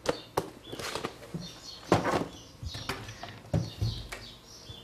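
Kitchen wall cupboard being opened and things handled on its shelves: a string of sharp clicks and knocks, with duller thumps about two seconds and three and a half seconds in.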